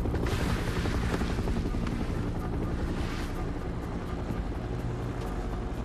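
Helicopter hovering, its rotor chopping steadily.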